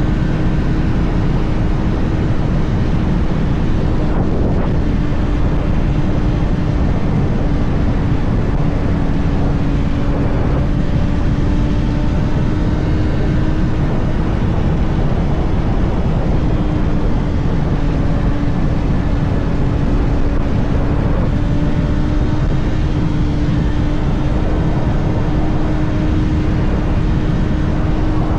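Kawasaki ZX-6R's 636 cc inline-four engine running at steady cruising revs, its note holding nearly level with slight rises and dips, over heavy wind rumble on the microphone.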